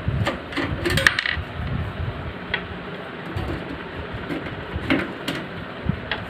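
Scattered small clicks and knocks of computer hardware being handled, with a quick cluster about a second in and single clicks later, over a low steady background rumble.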